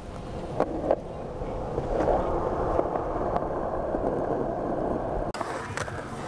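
A steady low rushing noise, like wind on the microphone, with a couple of sharp clicks about a second in. Near the end it cuts to skateboard wheels rolling and clacking on concrete.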